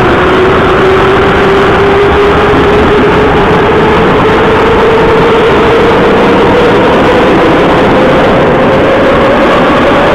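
Moscow metro 81-717.5M "Nomernoy" train heard from inside the car: its traction motors whine, the pitch rising steadily as the train gathers speed, over the loud rush and rumble of the running train.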